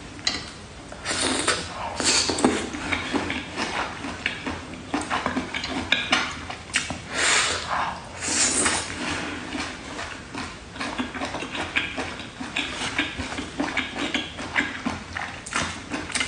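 A person eating octopus close to the microphone: irregular, rapid wet smacks and chewing clicks.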